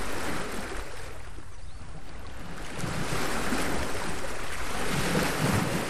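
Sea surf washing onto a beach: a steady rushing noise that swells and eases in slow surges.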